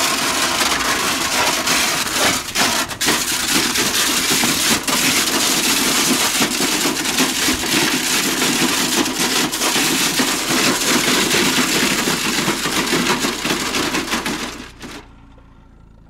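Crushed sheet-metal microwave oven cabinet scraping and crunching over gravel: a loud, continuous grinding noise full of sharp cracks, which stops abruptly about a second before the end.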